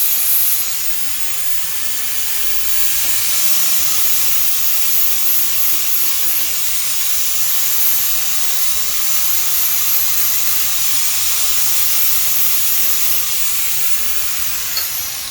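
Angle grinder with a flap disc grinding the edge of a steel lawn mower blade: a steady hissing grind with a thin high whine. Near the end the pitch starts to fall as the disc winds down.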